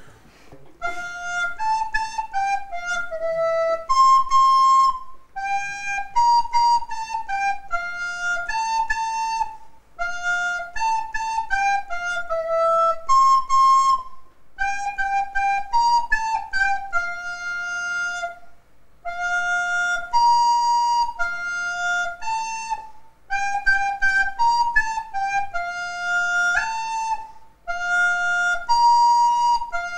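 A child playing a slow melody on a white plastic recorder, one clear note at a time, in phrases broken by short pauses for breath every four to five seconds.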